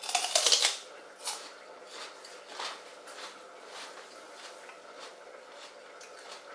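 A bite into a raw celery stick with a loud, crisp crunch. Chewing crunches follow roughly every half second, growing softer.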